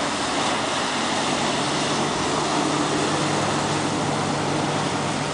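Thundercat racing powerboats' outboard engines droning steadily, a low even hum under a loud, constant rushing noise.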